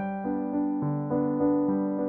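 Background music: a keyboard instrument playing a slow melody of held notes.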